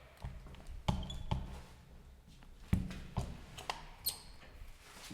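Graham elevator's door and lock mechanism clunking and clicking: about half a dozen irregular knocks over a low machinery hum. The uploader says this elevator has a faulty door-locking mechanism.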